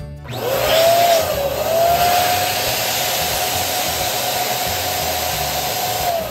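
Electric balloon pump switching on: its motor whine rises to a steady pitch over a loud rush of air as it inflates a latex balloon, then starts to fall away as the pump switches off at the end.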